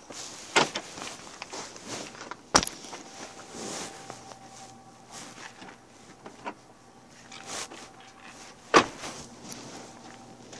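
Footsteps with rustling and handling noise, broken by three sharp knocks: one about half a second in, one a couple of seconds later, and the loudest near the end. A faint steady tone runs through the second half.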